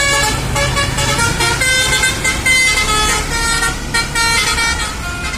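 A bus's Basuri Andromeda 'telolet' musical horn playing a tune, several horn tones sounding together and stepping from note to note every fraction of a second. The tune stops near the end.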